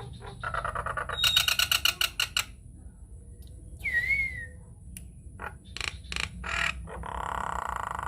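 Nias hill myna calling: fast rattling clicks, a single clear whistle that rises and falls about four seconds in, then harsh buzzy notes near the end.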